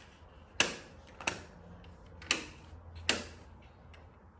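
Footsteps on a hard floor: four sharp clicks at an uneven walking pace, roughly one a second, over a faint low hum.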